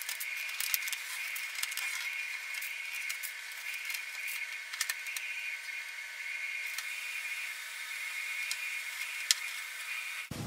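Steady hiss with scattered light clicks and crinkles: masking tape being cut with a hobby knife and peeled off a painted panel.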